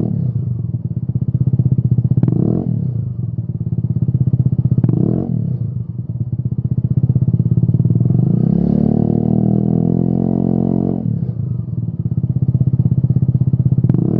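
Peugeot Speedfight 125 scooter's single-cylinder engine running through a Lextek YP4 aftermarket silencer: a steady idle broken by quick throttle blips every two to three seconds. Past the middle comes one longer rev, held for about three seconds before it drops back to idle.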